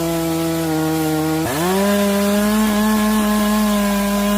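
Stihl MS 881 two-stroke chainsaw with a long bar cutting through a log at high revs. About a second and a half in, the engine note dips briefly, then climbs back and holds at a slightly higher steady pitch.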